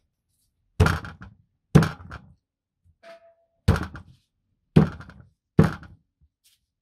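Small hatchet chopping a raw chicken on a wooden board: five heavy thunks at uneven intervals as the blade strikes through the meat into the wood.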